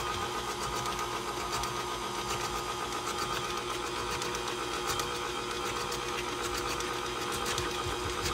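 KitchenAid Classic Plus tilt-head stand mixer running at a steady speed: an even motor whine as the beater churns banana bread batter in the metal bowl.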